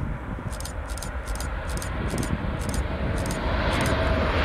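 TGV high-speed train approaching at speed: a rushing noise that swells steadily louder toward the end, over a low rumble of wind on the microphone. A faint, regular high ticking about twice a second runs through most of it.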